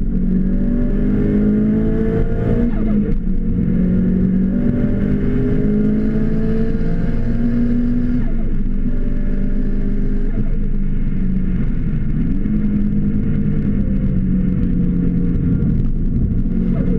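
Car engine heard from inside the cabin under hard acceleration on track: the revs climb, fall back at a gear change about three seconds in, climb again, drop sharply around the middle, then rise more slowly.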